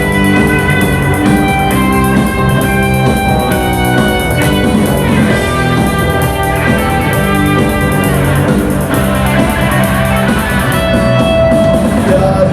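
Instrumental rock music: guitar over drums, a break between sung lines with no vocals.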